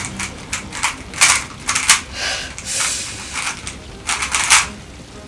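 Rubik's Cube being turned fast by hand: plastic layers clicking and rasping in quick, irregular bursts.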